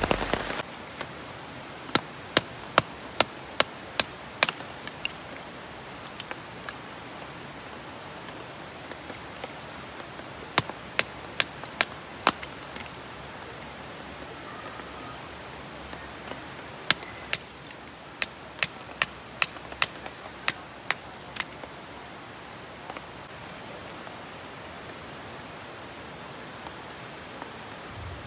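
Firewood being split into kindling: three runs of sharp wooden knocks, two or three a second, about two seconds in, around eleven seconds and from about seventeen to twenty-one seconds. A steady hiss of a shallow stream runs underneath.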